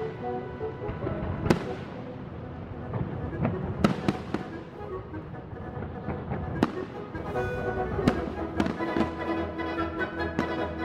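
Aerial fireworks shells bursting: irregular sharp bangs about every second, over steady music.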